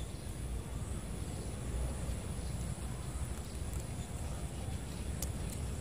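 Steady low rumble of outdoor background noise, with a faint steady high whine and a few light ticks near the end.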